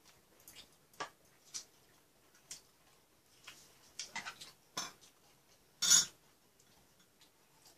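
Chopsticks and spoons clicking and scraping against bowls and dishes in scattered light taps, with one louder clatter about six seconds in.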